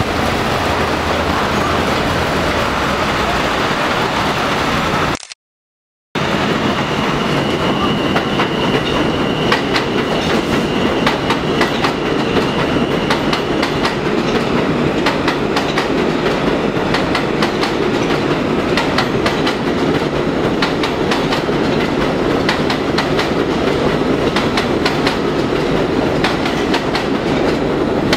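New York subway trains running through an elevated station at speed without stopping: first an R68 express on the centre track, then an R160A, with a steady rumble and rapid clickety-clack of wheels over rail joints. The sound cuts out completely for under a second about five seconds in, where the recording breaks.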